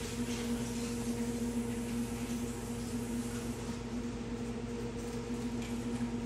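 A steady low hum over faint room noise.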